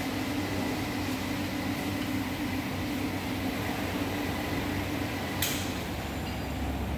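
Steady mechanical hum, like a fan or air conditioner, with a constant low drone. One sharp click sounds about three-quarters of the way through.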